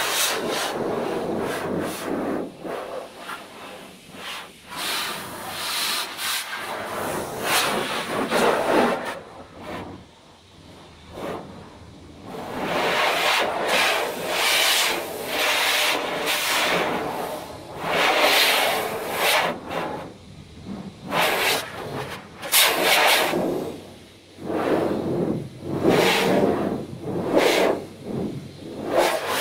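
A car being washed by hand, heard from inside the cabin: irregular swishing strokes against the body that swell and fade, with a few brief lulls.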